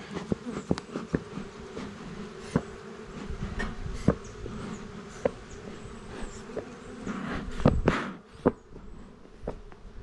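Honeybees buzzing around an open hive, a steady hum, with scattered sharp clicks and knocks. A louder burst of rustling and knocks comes about three-quarters of the way through.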